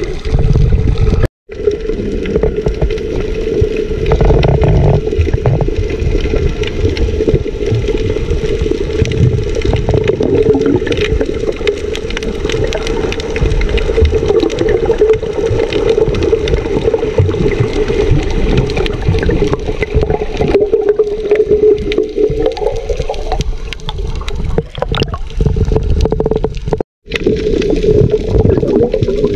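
Underwater sound picked up by a submerged camera: a loud, steady, muffled rush of water with a constant low hum. It drops out to silence for a moment twice, about a second in and near the end.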